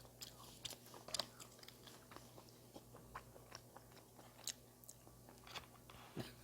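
A person chewing a mouthful of bossam, boiled pork in a leaf wrap: faint, irregular crunching and wet mouth clicks.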